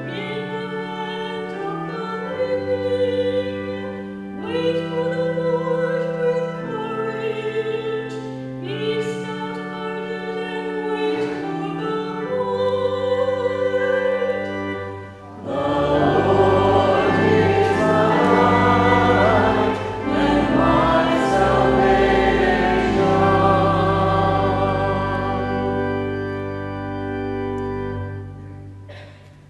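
A woman's solo singing voice holds long notes over a steady sustained accompaniment. About halfway through, many more voices join and the singing turns fuller and louder, then it dies away near the end.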